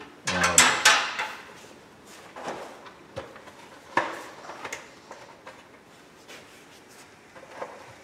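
Knocks and clatter of a turning tool and face shield being handled: a burst of clatter about half a second in, then a handful of separate knocks and clicks.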